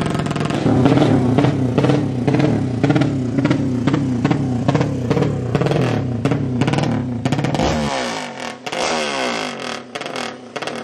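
200cc drag bike engine revved hard in rapid repeated blips, each a quick rise and fall in pitch, about two a second. About eight seconds in the blipping stops and an engine is heard more faintly, climbing steadily in pitch as it accelerates.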